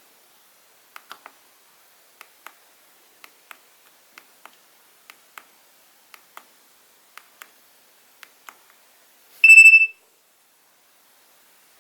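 Nokia 2300 keypad buttons clicking faintly, mostly in pairs about once a second, as the ringtone list is scrolled; near the end the phone's speaker gives one loud, high electronic ringtone beep lasting about half a second, the start of a ringtone preview, which cuts off.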